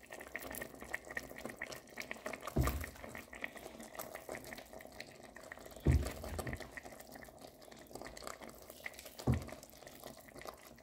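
Pot of soup simmering with a fine, steady bubbling, and three soft low plops a few seconds apart as lumps of pounded yam are dropped in to thicken it.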